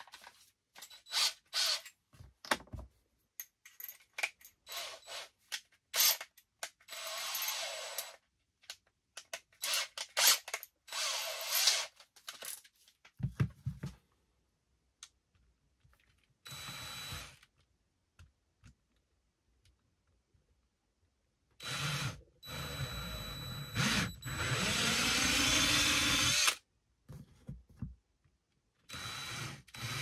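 Cordless drill running in short bursts, mixed with small clicks and knocks, then a longer run of several seconds whose pitch rises as the motor speeds up.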